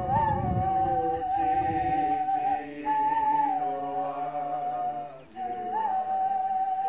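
Background music: a voice singing long-held notes in a chant-like line, with two short breaks.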